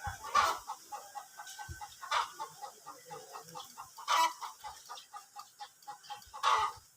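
Chickens clucking, with loud short calls about every two seconds, over a spotted dove's low, rapidly repeated cooing.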